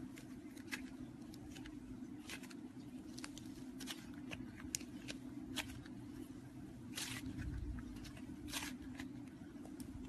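Slime being worked by hand: scattered sticky clicks and short crackling squelches, with a longer crackle about seven seconds in, over a steady low hum.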